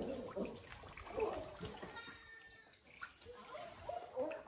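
Pet macaques giving soft, short calls, with one longer, higher call about two seconds in, over a faint trickle of water into a pool.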